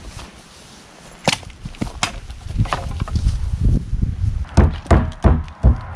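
A pair of Condor Viking machetes chopping into a target on a stand: a run of sharp chop impacts, a few spaced out at first, then a quicker cluster in the second half, with a low rumble beneath them.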